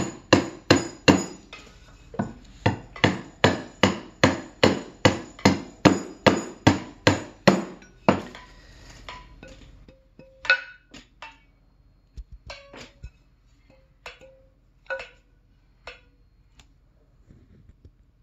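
A wooden gyil key held loose and struck with a mallet, tested for pitch while being tuned by ear. For about eight seconds it is knocked steadily, about three strikes a second. It is then struck singly six or seven times, each strike ringing a short clear note.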